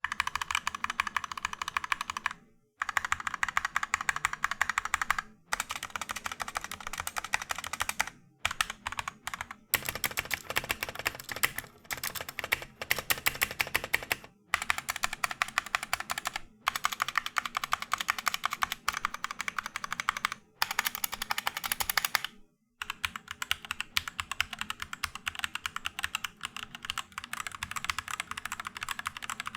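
Fast typing on a custom 60% mechanical keyboard with Gateron Yellow linear switches: a dense stream of key clacks. The stream is cut into separate runs by brief silent breaks every few seconds.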